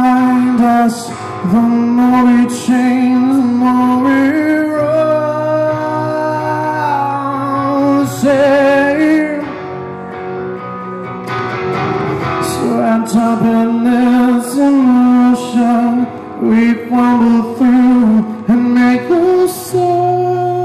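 Live rock band playing loudly: guitars, bass and drums, with a wavering melody line over them.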